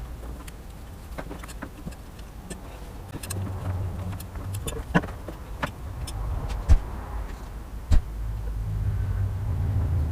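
Scattered clicks and clinks of hand tools and metal parts being handled during a stator installation, with three sharper knocks in the second half, over an uneven low rumble.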